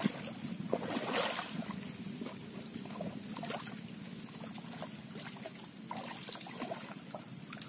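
Hands and feet moving through shallow muddy ditch water, with scattered small splashes and squelches, the biggest about a second in. The water is being churned up by hand to drive fish out of the mud.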